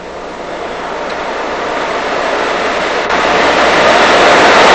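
Steady machine noise, an even rushing hum that grows steadily louder, with a step up about three seconds in.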